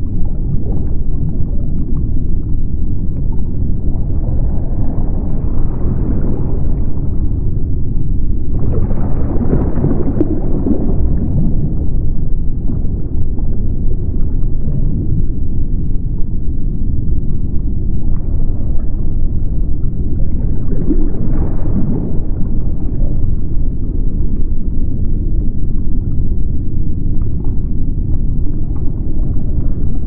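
Deep-ocean underwater ambience: a steady low rumble of water with surges that swell up several times, the strongest starting suddenly about nine seconds in and another around twenty-one seconds.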